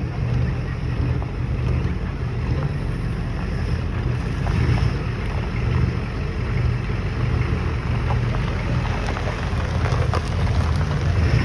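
Car engine running with a low, steady rumble, and wind buffeting the microphone.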